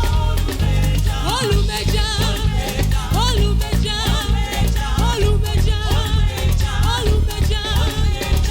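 Upbeat gospel praise music: singing over a band with bass, drums and a steady danceable beat.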